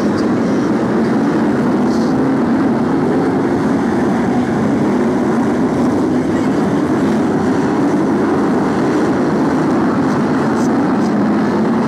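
A pack of BriSCA F1 stock cars' V8 engines running together, a loud steady drone without a break.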